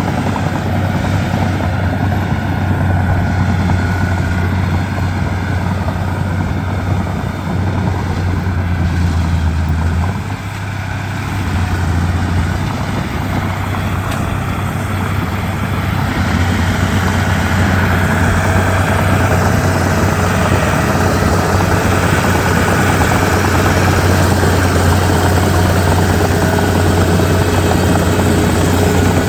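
Komatsu D31P bulldozer's diesel engine running steadily with a deep drone; the engine note dips and shifts about ten seconds in, then steadies again.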